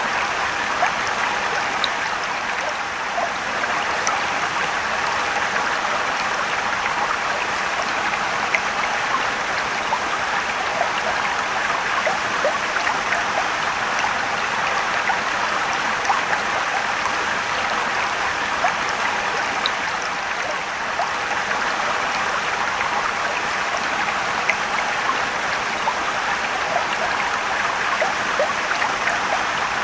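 Steady rushing and trickling of a mountain stream and small waterfall, with many small splashes and drips.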